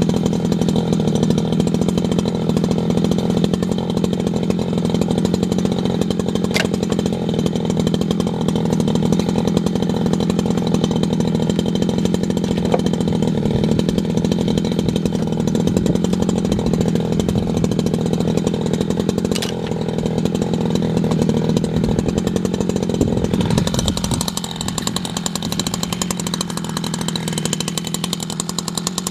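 Echo CS620 60cc two-stroke chainsaw running steadily at high revs while bucking branches into firewood. The engine note shifts and the level drops slightly near the end.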